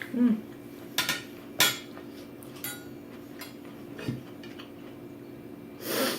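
Dishes and cutlery clinking at a dinner table: sharp clinks about one and one and a half seconds in, a few lighter knocks after, and a longer clatter near the end.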